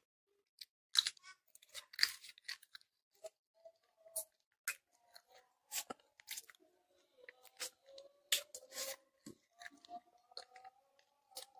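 Close-up eating sounds of chicken pulled off the bone with fingers and mouth: scattered wet smacks, clicks and chewing.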